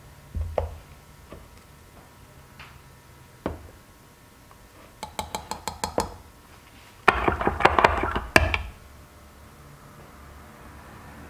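Metal spoon knocking and clinking against a glass measuring cup as green glitter flake is stirred into liquid soft plastic. There are a few scattered knocks, then a quick run of light clinks about five seconds in, then louder, faster clinking for about a second and a half around seven seconds in.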